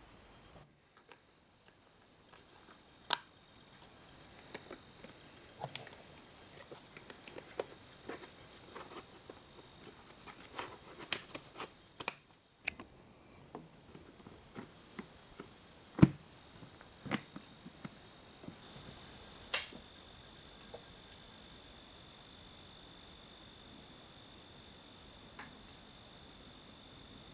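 High, steady insect trilling, likely crickets, with a faster pulsing chirp beneath it, along with scattered sharp clicks and knocks. The loudest knock comes about 16 seconds in.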